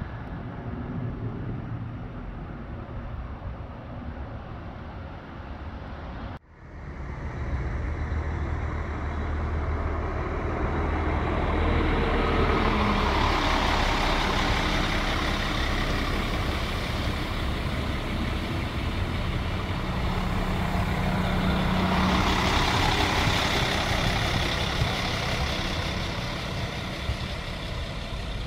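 Regional diesel railcar passing close at low speed: a steady engine drone with wheel and rail rumble, louder while it goes by. About six seconds in, a sudden break cuts from a quieter, more distant train to the nearby one.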